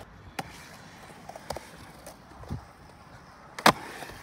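Skateboard rolling in a concrete bowl, with a few sharp clacks of the board striking the concrete; the loudest clack comes near the end.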